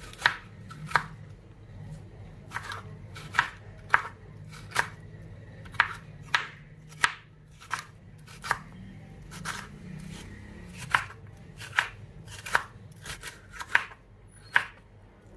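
Knife dicing red kapia pepper strips on a wooden cutting board: sharp knocks of the blade striking the board, about one a second at an uneven pace, with a faint low hum underneath.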